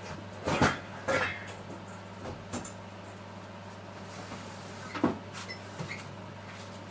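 Kitchen handling noises: short knocks and clatters of utensils or containers being picked up and set down. Two come close together within the first second or so and another about five seconds in, over a steady low hum.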